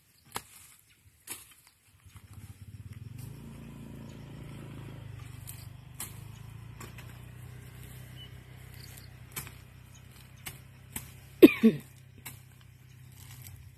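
A motor engine hums steadily from about two seconds in, over scattered sharp knocks and snips of hand tools cutting and chopping grass. Near the end comes one loud, short sound with falling pitch, the loudest thing here.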